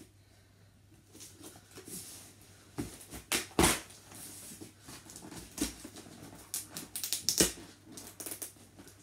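A large cardboard box sealed with packing tape being cut and pried open with scissors: scattered knocks and scrapes of the cardboard, and crackling as the flaps tear free of the tape. Two louder knocks come a little past three seconds and about seven seconds in.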